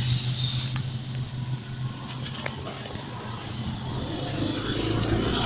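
A motor vehicle engine running with a steady low hum, a few light clicks over it; the low rumble grows louder near the end.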